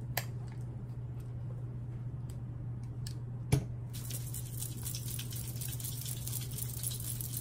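Hands rubbing a little hair shine oil between the palms, a soft crackly rustle from about four seconds in, over a steady low hum. A single sharp click sounds about halfway through.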